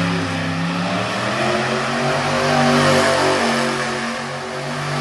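Monster truck engine running hard. It revs up and down several times as the truck drives across the dirt.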